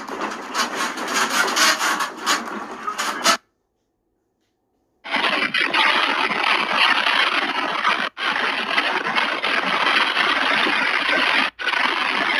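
Household furniture and objects rattling and a room creaking as it shakes in a strong earthquake: a dense, scraping clatter. It stops dead a little over three seconds in, with a second and a half of silence, then resumes.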